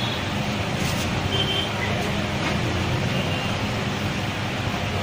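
Steady street traffic noise, a continuous low hum, with a few faint short high beeps.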